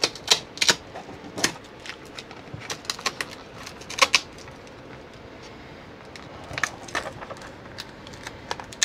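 Irregular clicks and taps of hands handling an opened lithium (LiFePO4) battery, moving its hard plastic case shell and the stiff yellow liner around the cell pack. The loudest knock comes about four seconds in.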